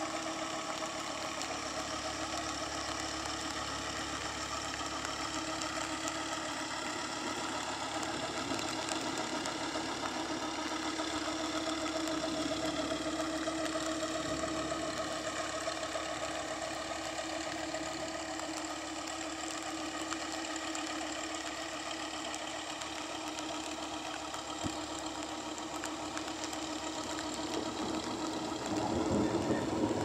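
A long-tail river boat's engine chugging steadily as the boat passes, its pitch drifting slightly as it moves away, over the steady hiss of heavy rain on the water. Near the end, a low rumble of thunder starts to build.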